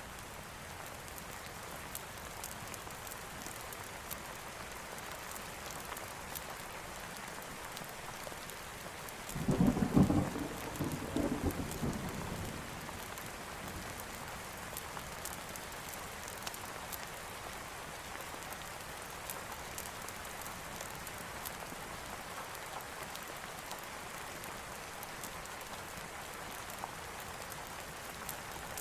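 Steady rain falling, with a single clap of thunder about a third of the way in that rumbles on for about three seconds.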